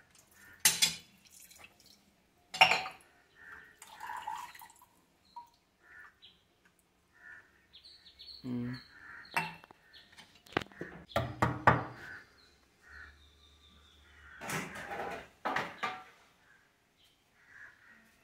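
A whole coconut is struck with the back of a kitchen knife to crack it, giving two sharp knocks in the first few seconds, followed by coconut water dripping into a steel tumbler. Later come more clusters of knocks and clatter from steel dishes in the sink.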